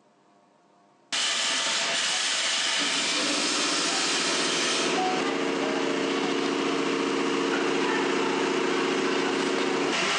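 Near silence, then about a second in a loud, steady machinery noise cuts in suddenly: a hiss with a humming drone that joins it a couple of seconds later and holds steady.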